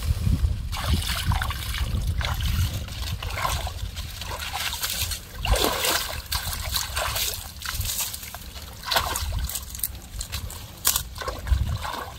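Shallow muddy pond water splashing and sloshing in irregular bursts as a person wades and steps through it at the water's edge.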